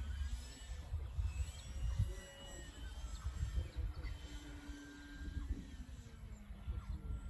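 Wind buffeting the microphone in irregular gusts, over the faint whine of a distant electric E-flite Carbon-Z Yak model aerobatic plane whose pitch slides slowly up and down as it manoeuvres.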